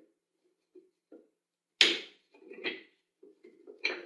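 Wooden tricopter frame pieces handled on a table: one sharp wooden knock about two seconds in, followed by a few lighter knocks and rubbing of wood on wood.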